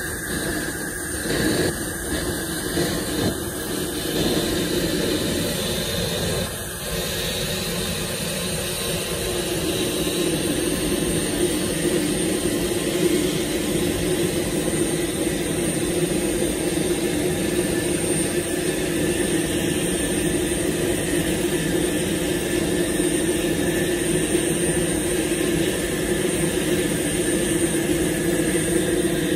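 Steady jet-aircraft drone with several held tones, getting slightly louder after about ten seconds.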